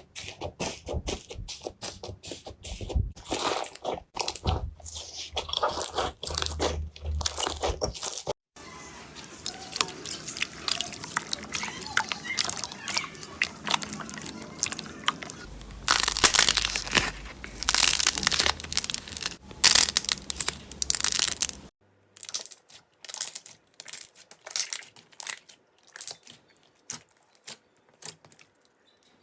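Slime being squeezed and pressed, giving rapid crackling pops and crunchy clicks. The sound changes abruptly twice, about 8 s and about 22 s in: the middle part is a denser, louder crackle and the last part has sparser pops.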